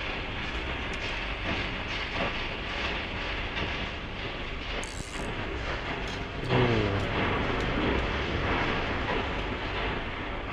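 Steady rumbling noise with scattered knocks and clatter, and a brief, louder pitched sound with a slightly falling tone about six and a half seconds in.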